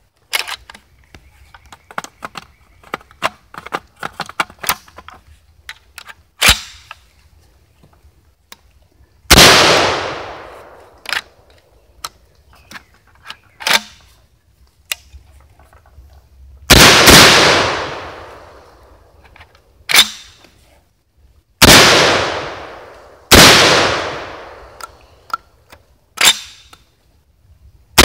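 SDS Lynx 12-gauge semi-auto shotgun: metallic clicks of the gun and magazine being handled, then four loud shots several seconds apart with a fifth at the very end, and shorter sharp clacks between some of them. It is firing lighter loads that the shooter says it does not like.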